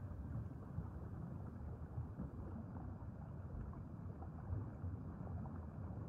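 Underwater ambience: a steady low rumble and hiss of moving water, with a few faint crackles.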